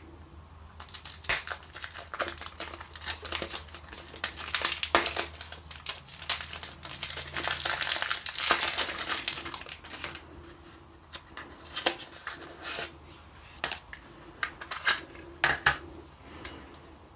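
Clear plastic shrink wrapper being torn and peeled off a Sony MiniDisc case, crinkling densely from about a second in until about ten seconds, then only scattered crackles and clicks as the unwrapped disc is handled.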